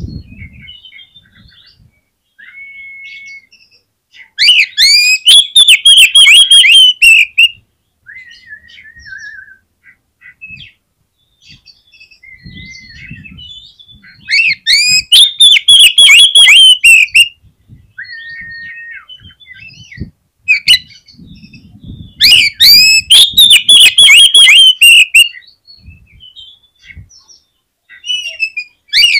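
Oriental magpie-robin (kacer) singing vigorously: three loud bursts of rapid, sweeping high notes, each about three seconds long, with quieter scattered notes and short flat whistles between them, and a fourth burst starting at the very end.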